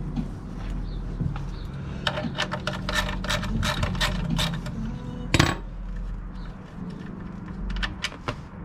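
Metal hand tools clicking and clinking under the car during an oil change. A run of quick clicks starts about two seconds in, and a single sharp metallic knock comes a little past five seconds.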